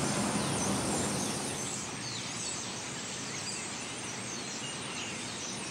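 Outdoor ambience: a steady hiss of background noise with small birds chirping several times. The lower rumble eases off after about two seconds.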